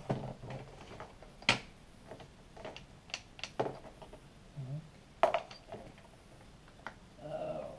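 Metal clinks and taps from tools and clutch parts of a 66cc two-stroke bicycle engine being worked on by hand: scattered sharp clicks with pauses between them, the loudest about five seconds in.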